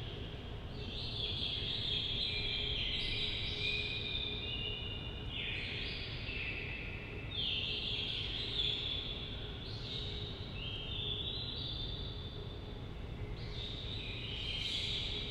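Ambient background noise: high-pitched chirping over a low, steady hum, with the chirping changing abruptly several times.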